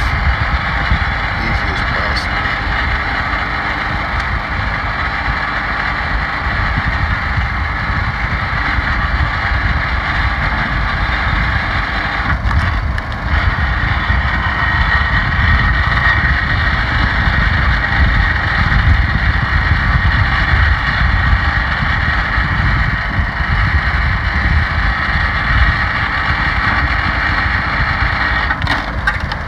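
The 11-horsepower Honda engine on a commercial hydraulic log splitter running at a steady speed, driving the hydraulic pump while rounds are split.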